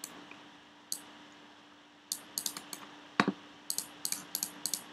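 Computer keyboard and mouse clicks: a single click about a second in, a short run of clicks around two seconds in, one louder knock just past three seconds, then a quick string of clicks near the end, over a faint steady hum.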